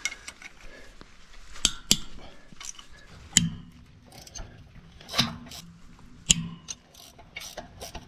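Box-end wrench working the mounting bolts of a center pivot irrigation tower's wheel gearbox: scattered sharp metallic clicks and clinks, with a few duller knocks against the steel.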